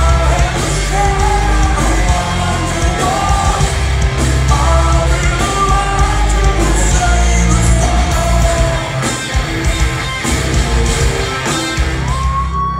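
Live rock band playing loud, with electric guitars, drums and a singer, heard from among the audience in the hall. The music thins briefly near the end.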